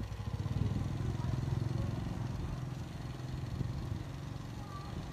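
Low engine rumble of a passing vehicle, swelling about half a second in and fading over the next few seconds.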